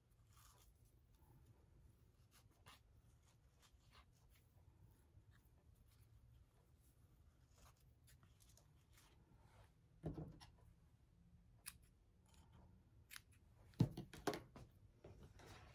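Faint rustling of hands working twine on a stuffed fabric figure, with a few sharp knocks and clicks in the last third as a pair of scissors is handled on a cutting mat, the loudest about 14 seconds in.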